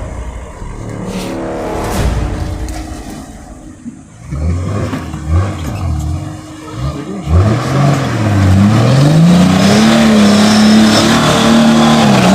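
Off-road 4x4's engine revved in several quick blips, then climbing to high revs and held there from about eight seconds in, under a loud hiss of spinning tyres.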